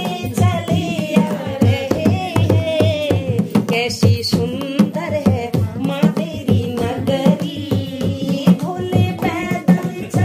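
Women singing a Hindu devotional bhajan together, accompanied by a hand-played dholak beating a steady rhythm, with hand claps keeping time.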